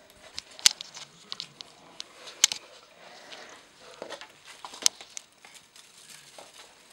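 Siberian kittens scampering and pouncing on a hard wooden floor while chasing a feather wand toy: a light patter and scuffing of paws and claws, with three sharp taps.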